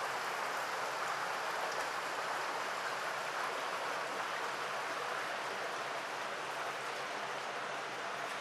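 Steady rushing of running water from a mountain brook, an even hiss with no breaks.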